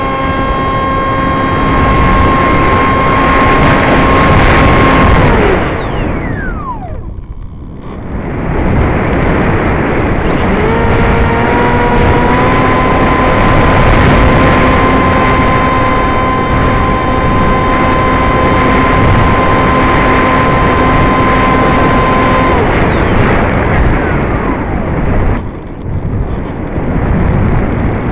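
Electric pusher motor of a Skysurfer RC foam glider, heard from the plane over heavy wind rush. Its steady whine drops in pitch and cuts out about five seconds in, leaving a few seconds of gliding with only wind. The motor then spins back up, holds a steady whine and is cut again about two-thirds of the way through.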